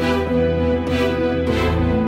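Background music: held chords over a steady bass, with a soft beat about every 0.8 seconds; the bass line changes near the end.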